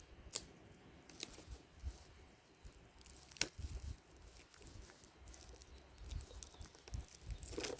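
Quiet handling of a 4K Blu-ray set's packaging as its backing is peeled and torn off, with faint crinkling and tearing and two sharp plastic clicks, one just after the start and one about three and a half seconds in.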